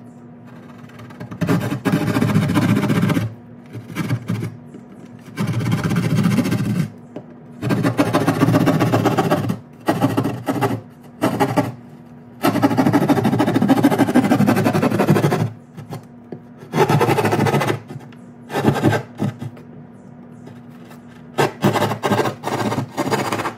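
Drywall jab saw cutting through gypsum board in runs of quick rasping strokes, each run lasting one to three seconds, with short pauses between.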